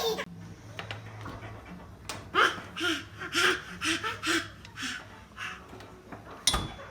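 Soft laughter in a run of about seven short chuckles, about two a second, followed near the end by a single sharp knock.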